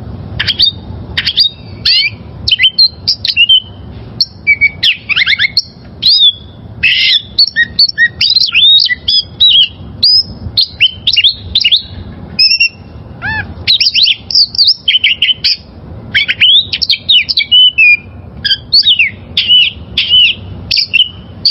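Oriental magpie-robin (kacer) singing: a fast, varied run of clear whistled notes, up- and down-sweeps and chatters, phrase after phrase with brief pauses, over a faint low hum.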